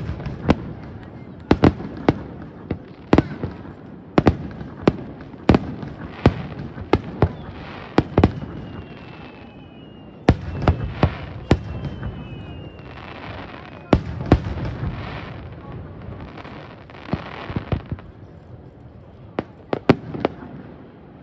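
Fireworks display: a rapid, uneven series of sharp bangs, with stretches of crackling hiss between them and twice a thin whistle falling slightly in pitch.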